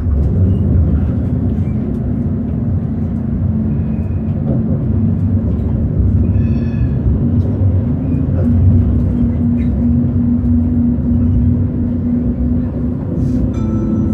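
Tram running along its rails, heard from inside the car: a steady low rumble with a steady hum from the drive. A short high pitched sound comes about halfway, and another near the end.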